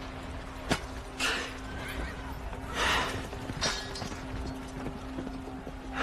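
Battle-scene soundtrack of a historical drama: a sharp crack about three-quarters of a second in and another a little before the four-second mark, with a few short rushes of noise between them, over a low note held steadily in the score.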